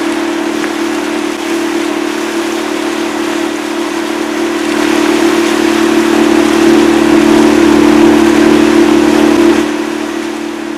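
A motorboat engine running steadily, a constant hum that swells louder about halfway through and eases off near the end.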